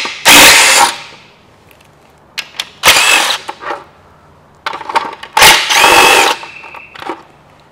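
Cordless DeWalt driver with a socket spinning out the exhaust manifold heat shield bolts, in several short bursts of motor whine with pauses between.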